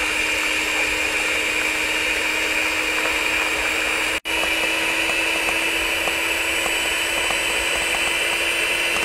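Electrolux electric hand mixer running steadily, its beaters whipping egg whites to foam in a stainless steel bowl: a steady motor whine. It breaks off for an instant about four seconds in and comes back a touch higher in pitch.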